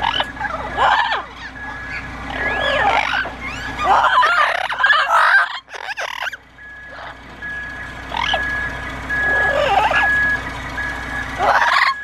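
Amazon parrots squawking and chattering in short bursts, over a steady high electronic beep that repeats about twice a second, the odd noise the birds are reacting to.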